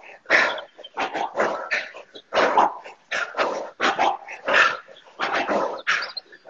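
Sharp, breathy exhales, about two a second, in time with jab-cross-hook punches thrown while shadow boxing hard in a high-intensity workout.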